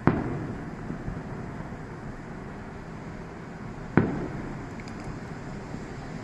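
Two firework shells bursting, one just after the start and one about four seconds later, each a sharp bang trailing off in a rumbling echo, with a smaller pop in between, over a steady background hiss.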